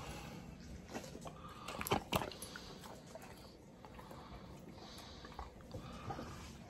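Leftover prime rib being handled by hand in an aluminium foil pan, with a cluster of sharp clicks about two seconds in.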